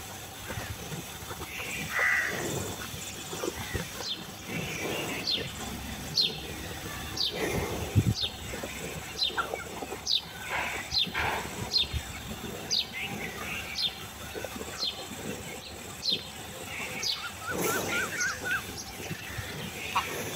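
A bird calling over and over, short high falling notes a little more than once a second, beginning a few seconds in. Under it, cattle munching and rustling dry chopped fodder at the trough.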